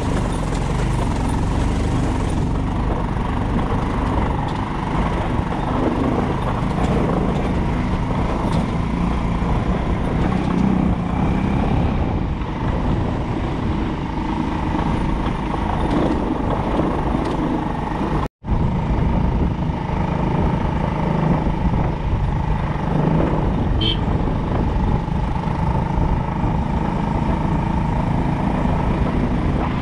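Steady engine and road noise of a motor vehicle travelling along a road, with a faint steady whine above the rumble. The sound cuts out completely for a moment about eighteen seconds in.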